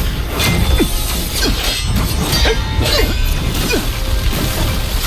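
Animated-battle sound effects: a quick run of blade clashes and impacts, about two a second, with short whooshes, over background music.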